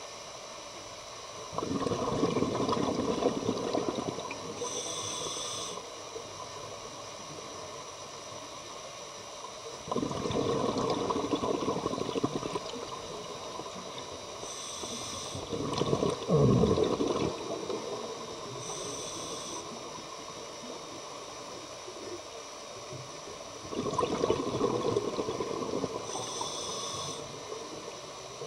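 Scuba diver breathing through a regulator underwater: about four exhalations, each a burble of bubbles lasting two to three seconds, alternating with short high hisses of the regulator on the inhale, over a steady background hiss.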